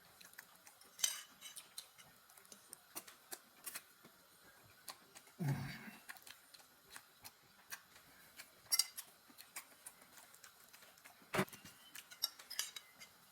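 Spaghetti being eaten with a fork: the fork clinks and scrapes against a plate in scattered sharp clicks, with a few louder clicks. About five and a half seconds in there is a short, fuller mouth sound from the eating.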